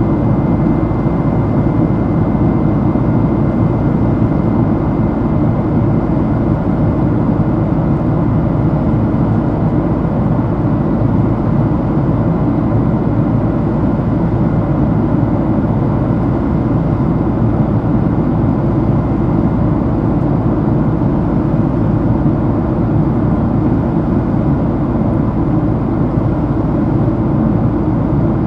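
Steady engine and airflow noise inside the cabin of a Boeing 767-300 powered by GE CF6 turbofans, heavy and low, with a faint high whine that fades out over roughly the first ten seconds.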